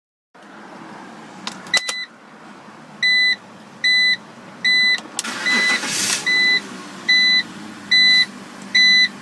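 BMW in-car warning chime beeping repeatedly, nine short high beeps about 0.8 s apart, over a steady low hum. A few clicks come before the first beep, and a brief rush of noise comes about halfway through.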